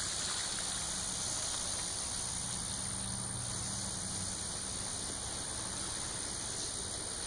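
Steady rain falling on a wet street, an even hiss with no break. A faint low hum sits under it for the first four seconds or so.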